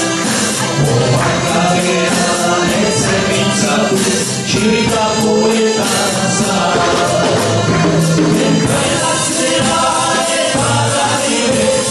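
Live trio of piano accordion, trumpet and drum kit playing a Basque tune together.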